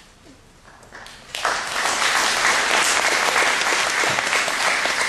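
After a short hush, audience applause breaks out about a second and a half in and carries on steadily.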